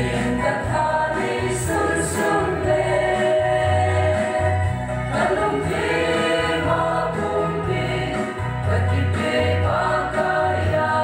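A group of women singing a gospel song together over an instrumental backing with a bass line in held notes.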